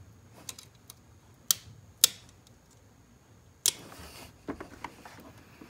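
Small sharp clicks and scraping of a pick working the red locking tab up on the heater control valve's plastic electrical connector. The loudest click comes about two seconds in, and there is a brief scrape a little later.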